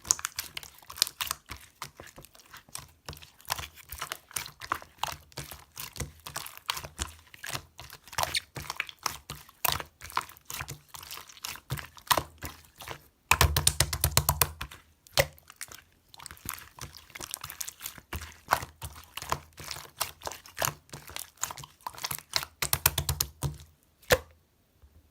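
Teddy bear slime being squished and pressed by hand, a dense run of small wet clicks and pops from air pockets in the slime. About thirteen seconds in, and again near the end, the handling gets heavier and louder before it stops.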